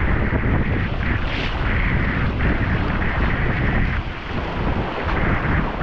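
Strong wind buffeting the microphone over the rush and splash of choppy sea breaking against the hull and outriggers of a Hobie Tandem Island sailing kayak under way, loud and steady.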